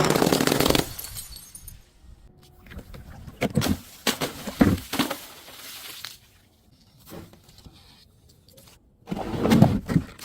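Glass bottles breaking: a loud crash of shattering glass at the start, then scattered crunching and cracking of glass pieces, and another loud crash of breaking glass near the end.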